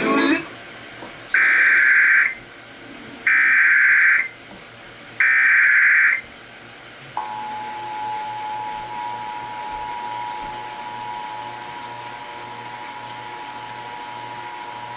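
Emergency Alert System header for a flash flood warning: three loud one-second bursts of buzzing SAME data, a second apart, then the steady two-tone attention signal starts about seven seconds in and holds.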